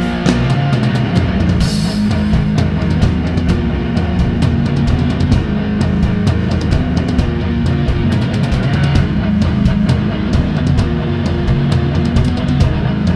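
Heavy rock music, with guitar and a drum kit playing at a steady, loud level.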